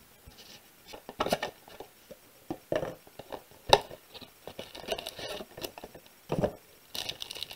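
Trading cards and their plastic wrapping handled by hand: scattered light taps, clicks and rustles, growing busier near the end.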